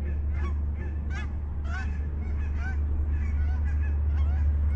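A flock of geese honking, many short calls overlapping and repeating several times a second, over a steady low rumble.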